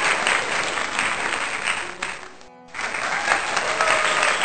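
Applause from a crowd. It dies away about two seconds in and starts up again just as loud a moment later.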